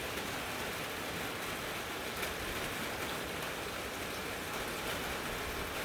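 Steady hiss of rain and wind as Hurricane Zeta closes in, constant in level without a distinct gust.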